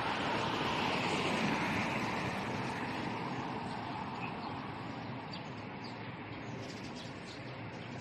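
Steady rushing outdoor noise, loudest at the start and slowly fading, with a few faint bird chirps in the second half.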